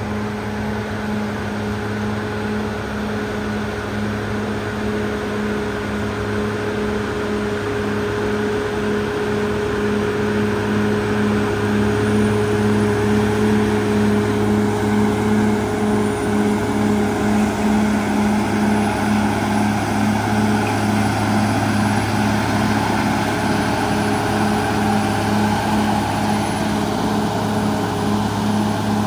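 CAT D6R XL crawler dozer's diesel engine running steadily under load as its blade pushes soil, growing a little louder about a third of the way in. A thin whine rides over it and fades out about halfway through.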